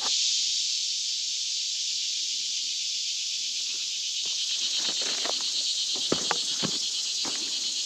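A steady, high-pitched chorus of insects drones without a break. From about four seconds in, footsteps crunch and scuff on dry leaves and trail ground.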